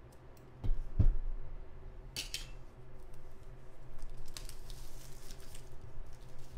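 A hardcover notebook set down on a table with two soft thumps, then its shiny plastic wrapping crinkling and rustling as hands work at it.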